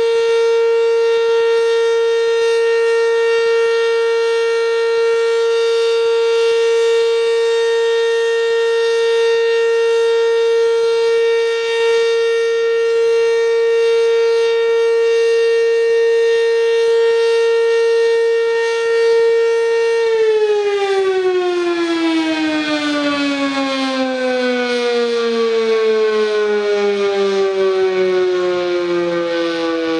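ACA Banshee outdoor warning siren sounding a steady, loud tone, then winding down about two-thirds of the way in, its pitch falling slowly as the rotor spins down at the end of the test.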